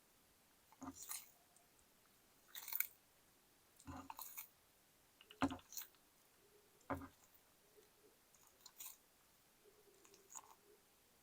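A pet turtle biting and chewing food: short, crisp crunches come every second or two, about eight in all, with quiet between them.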